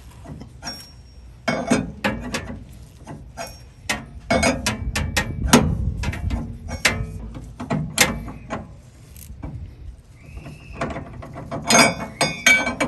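Hand ratchet clicking in repeated bursts as the 44 mm nut on a steering sector shaft is cranked down tight.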